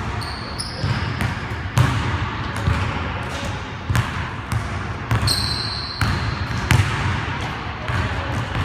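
Basketball bouncing on a gym floor in an irregular dribbling rhythm, the hardest bounces about two, four, six and seven seconds in. Two short high squeaks, near the start and about five seconds in, typical of sneakers on a court.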